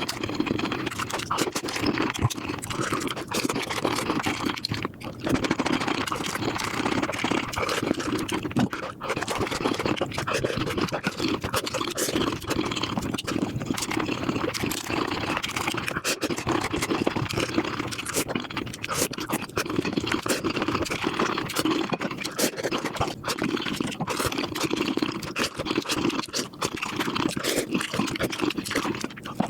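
Mukbang eating sounds sped up five times: a dense, unbroken stream of fast chewing, smacking and crunching clicks.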